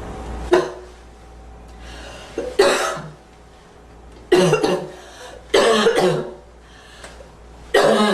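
A young woman coughing repeatedly in short bouts of one to three harsh coughs, roughly every one and a half to two seconds.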